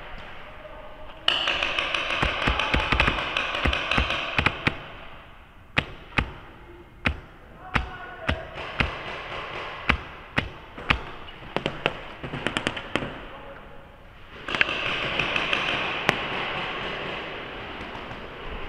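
Paintball markers firing in a large indoor hall. A stretch of dense noise full of rapid pops starts about a second in, then comes a run of separate sharp shots, and another dense stretch follows near the end.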